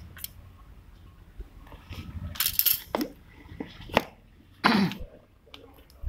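Cardboard smartphone box being handled and its lid lifted off the inner tray: a few brief rustles and scrapes, the loudest about halfway through and again about three-quarters through.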